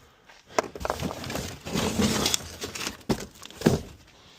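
Rummaging through a pile of junk: rustling and scraping with several sharp knocks and clatters as pieces are picked up and tossed into boxes, the loudest knocks about half a second in and twice near three and a half seconds.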